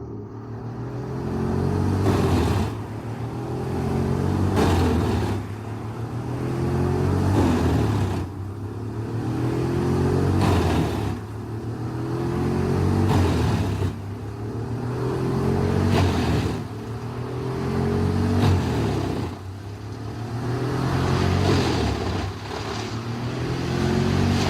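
A heavy machine's engine under repeated load, swelling and dropping back about every two and a half seconds in a steady cycle.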